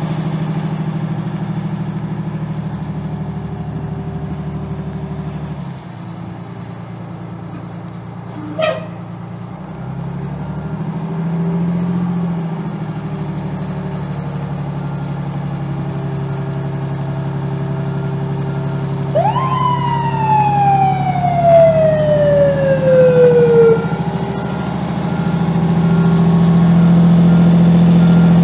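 A 1989 Pierce Arrow fire truck's Detroit Diesel 6V92TA two-stroke V6 diesel running, its speed rising around twelve seconds in and again near the end. A short sharp blip comes about nine seconds in. About twenty seconds in, the siren gives one wail that rises quickly and falls slowly over about four seconds.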